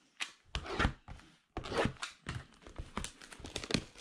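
Plastic shrink-wrap crinkling and tearing as it is peeled off a sealed box of trading cards, in irregular crackly bursts.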